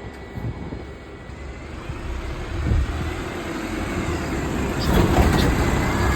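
A bus engine running, its low rumble growing louder as it draws nearer.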